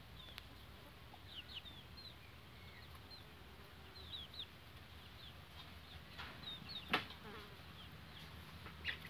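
Young chicks peeping faintly: short, high cheeps in little clusters every second or two. A brief sharp click, the loudest sound, about seven seconds in.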